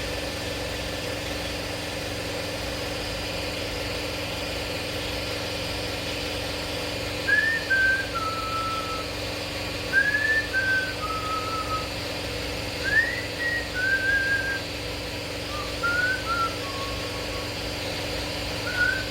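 Shop air compressor running steadily with a constant motor hum. About a third of the way in, a short tune is whistled over it in falling two- and three-note phrases, repeated every few seconds.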